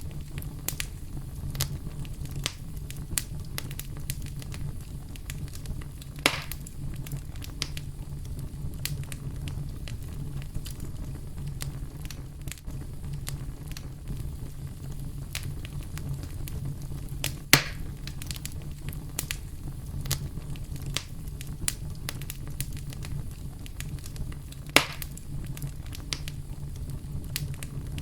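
Campfire crackling, with many small ticks and snaps over a steady low rumble of brown noise. Three louder pops stand out, about six, seventeen and twenty-five seconds in.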